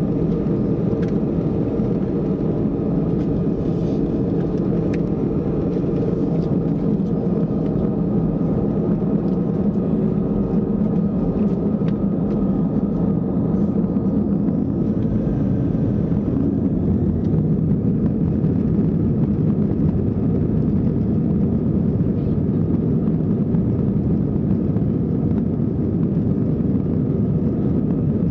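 Airbus A320 cabin noise heard from a window seat over the wing: a steady engine rumble with a faint high whine as the jet taxis onto the runway.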